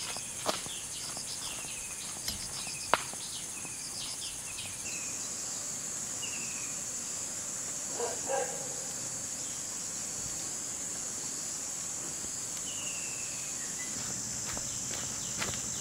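A steady, high-pitched insect chorus. Several short, falling bird chirps come and go over it, a few sharp clicks sound, the loudest about three seconds in, and a brief pitched call comes about eight seconds in.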